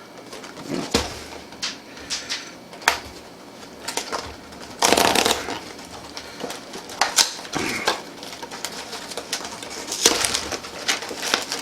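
A snack box and its individually wrapped plastic packets being opened by hand: irregular crinkling and tearing with sharp clicks and rustles, loudest about five seconds in and again near the end.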